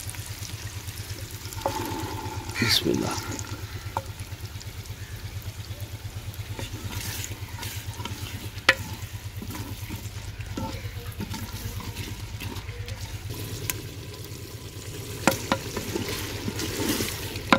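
Green peas tipped into hot fried masala in a clay cooking pot about three seconds in, then a wooden spoon stirring them with a soft sizzle and sharp knocks against the pot's clay sides. A steady low hum runs underneath.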